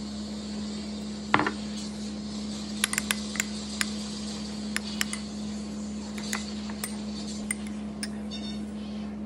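A knock about a second in, then a metal spoon clinking against a ceramic bowl again and again as soup is stirred, over a steady low hum.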